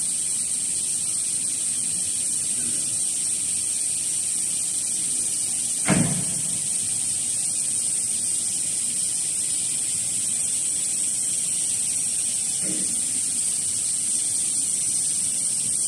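CNC router with drilling bank running on MDF: a steady high-pitched whine and hiss, with one sharp knock about six seconds in and a softer one later.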